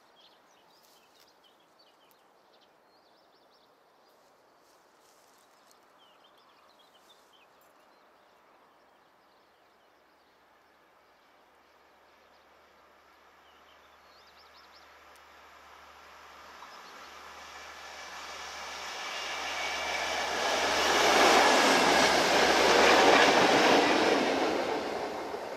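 Train running by on the line, its wheel and rail noise swelling steadily and reaching its loudest near the end. Birds chirp faintly in the first few seconds.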